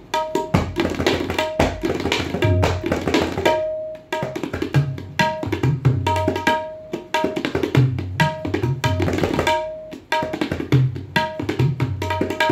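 Solo tabla playing a rela in rupak taal, the seven-beat cycle: fast, dense strokes on the dayan ringing at one steady pitch, under bayan bass strokes that bend upward in pitch. The flow breaks off briefly about four seconds in and again about ten seconds in.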